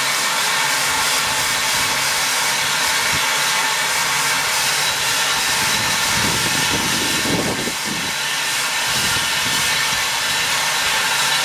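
Steady hiss of steam escaping from a standing SECR H-class 0-4-4 tank locomotive.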